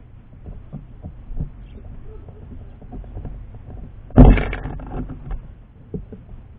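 Birds at a close-up feeder camera: small taps and scratches of beaks and claws on the feeder, with a loud thump about four seconds in, as of a bird landing on the feeder.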